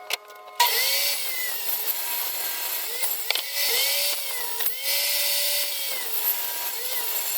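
Power saw cutting a board at 45 degrees, its motor spinning up and winding down in several short runs.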